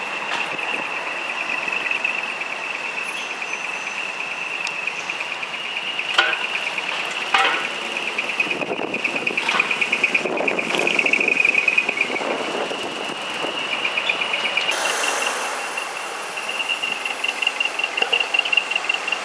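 Decorated trucks (dekotora) driving out with their engines running, under a steady, high-pitched pulsing tone. There are two sharp knocks about six and seven seconds in, and a hiss joins near the end.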